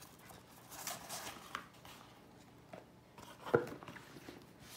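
A packaging box being handled off-camera: a faint rustle, a few light clicks, then one sharp knock about three and a half seconds in as the box is set down.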